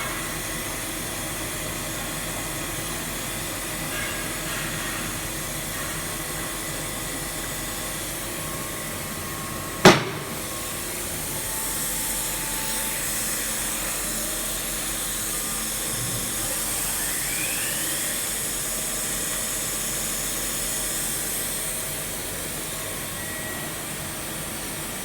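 Steady whirring and hiss of machine-shop equipment around a CNC milling machine, with one sharp click about ten seconds in and a short rising whine a little later.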